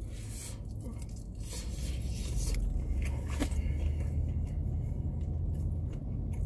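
Crunchy bites and chewing of fried chicken, with a few crackling rustles of a paper food box, over a steady low hum in a car's cabin.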